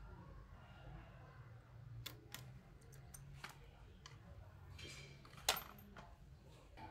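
A few faint, scattered metallic clicks and clinks of motorcycle engine parts being handled during reassembly, the sharpest about five and a half seconds in, over a low steady hum.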